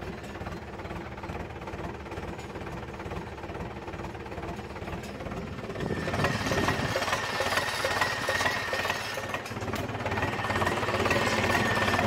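Turbocharged Zetor tractor diesel engine running, heard from inside the cab. About six seconds in it gets louder and a steady high turbo whistle comes in over the engine's clatter.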